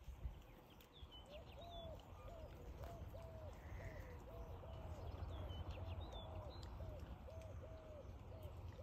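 A bird calling in a steady run of short, low notes, about two a second, with a few brief high chirps from another bird over a low wind rumble.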